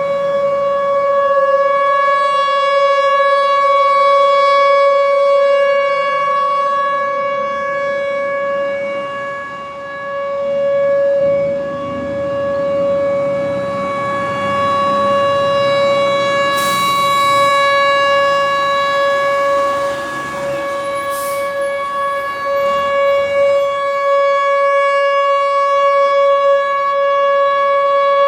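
Outdoor tornado warning siren sounding a steady tone during a test, its loudness slowly swelling and dipping.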